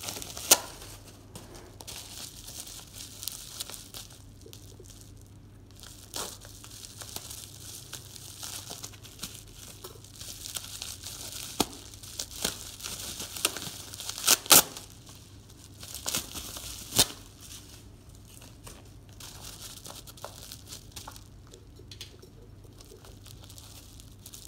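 Parcel packaging crinkling and tearing as it is handled and pulled open by hand, in uneven spells with a few sharp snaps, the loudest two close together about halfway through.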